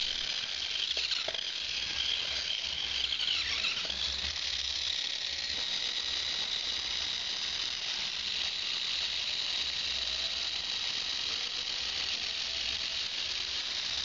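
Small gearmotors of a DAGU Mr. Basic robot chassis running, a steady high-pitched whine. The pitch dips briefly about three and a half seconds in, then comes back.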